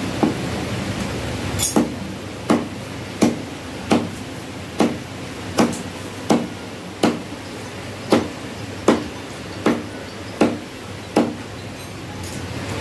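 A butcher's cleaver chopping through mutton ribs on a wooden log block: a steady run of sharp chops, a little more than one a second.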